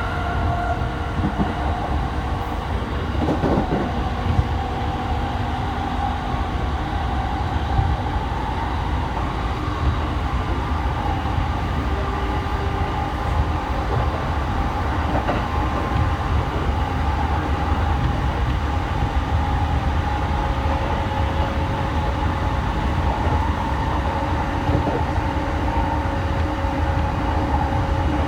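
Running noise of a JR East E217-series electric train at speed, heard from inside the car: a steady low rumble of wheels on rail with faint humming tones and a few sharp knocks.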